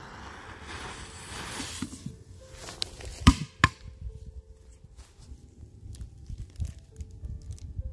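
A firecracker fuse sizzling for about two seconds, then two sharp bangs close together as China-Cracker firecrackers go off.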